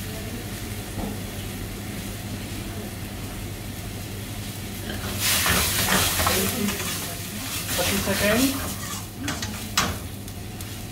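Chili beef sizzling in a wok over a high gas flame, under a steady low hum. About five seconds in the sizzle grows loud as the food is stirred and tossed with a ladle and the flame flares up around the wok, with the ladle scraping and knocking against the wok near the end.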